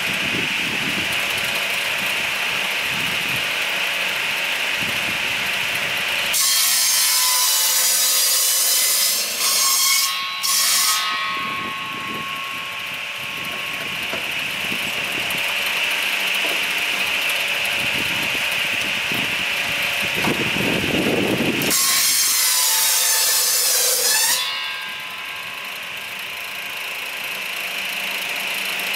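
Firewood saw-and-splitter machine running steadily, its saw cutting through a log twice: a loud rasping cut starting about six seconds in and lasting a few seconds, then another cut about twenty-two seconds in.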